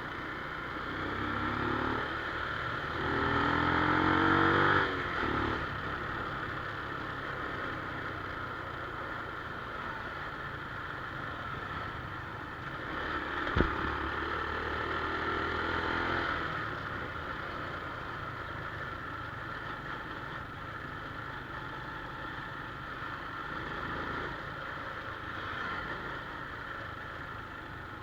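Small single-cylinder motorcycle engine, a Honda Wave 110i, revving up in a rising pull that drops off abruptly about five seconds in, then running steadily. A sharp click comes about halfway through, followed by a second, milder rise in revs.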